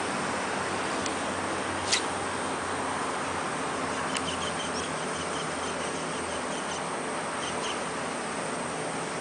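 Steady outdoor hiss with insects chirping in faint, short repeated pulses, and two sharp clicks about two and four seconds in.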